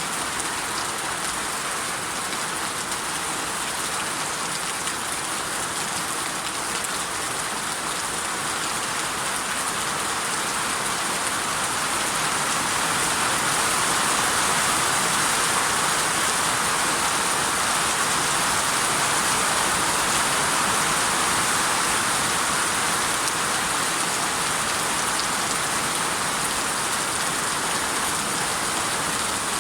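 Steady rain falling, an even hiss that swells slightly louder about halfway through.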